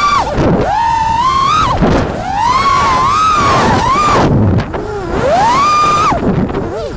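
An FPV racing quadcopter's T-Motor F40 brushless motors whining, the pitch climbing to a high whine and dropping sharply with each throttle change, about four times.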